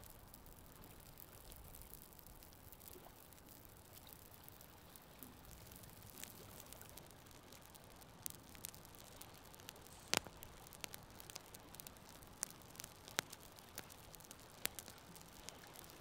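Wood campfire crackling: sharp pops and snaps over a faint steady hiss. The pops are sparse at first and come more often from about six seconds in, with the loudest snap about ten seconds in.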